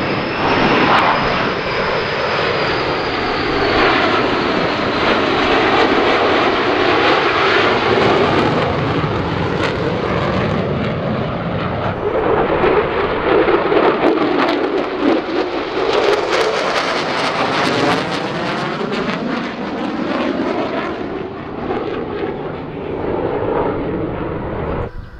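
Jet engines of F-16 Fighting Falcons flying past, loud and continuous, the tone sweeping and shifting as the jets move across. A high whine falls in pitch over the first few seconds.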